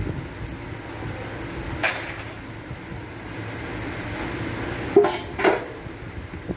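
Metal tools and engine parts clinking and knocking during an engine teardown: one ringing clink about two seconds in, then two sharper knocks close together near the end, over a steady background hum.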